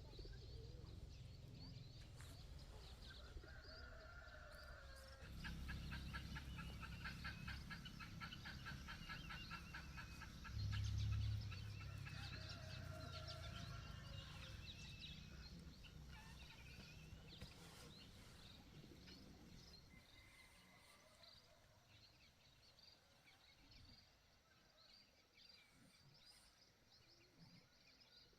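Chickens and small birds calling, with rapid chirping. A low rumble runs under it for the first half and swells briefly to its loudest about eleven seconds in.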